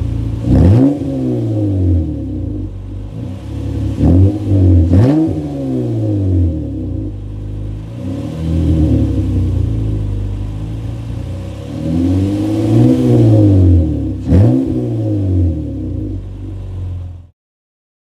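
Honda Accord V6 engine revved in place through its exhaust, blipped several times with quick sharp stabs and a couple of slower, longer rises, settling back toward idle between them. The sound cuts off suddenly near the end.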